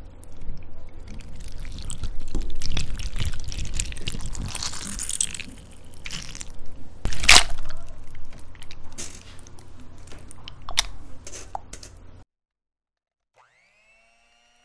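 Wet squelching and dripping as soaked gelatin sheets are squeezed out by hand and dropped into a glass bowl, with a sharp knock about seven seconds in. It cuts off about twelve seconds in, and an electric hand mixer then starts faintly with a rising whine that levels off.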